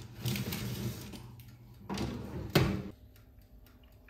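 Metal baking tray sliding onto the wire rack of a countertop oven with a few light clatters, then a sharp knock about two and a half seconds in as the oven's glass door shuts.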